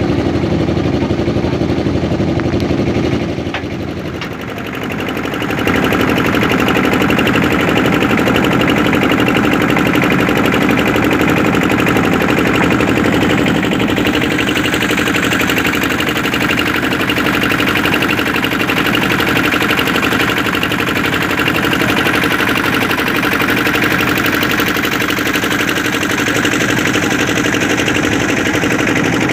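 A boat's engine running steadily with a rapid chugging beat. It eases off briefly about four seconds in, then picks back up.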